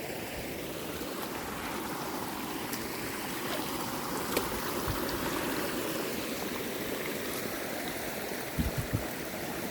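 Storm runoff water rushing steadily along a channel. A few soft low thumps come shortly before the end.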